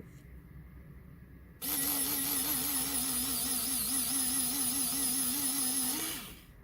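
Small DC motor of a filament feeder switched on, running with a whine as it drives filament through the feeder, its pitch wavering up and down about twice a second. It starts abruptly about a second and a half in and stops after about four and a half seconds.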